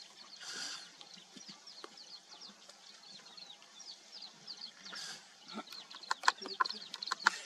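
Many small birds chirping in quick, short, falling notes, with two brief swells of rustling noise and a run of sharp snaps and clicks near the end, which are the loudest sounds.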